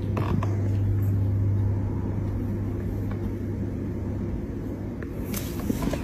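A steady low hum with a few faint clicks about a second in and near the end.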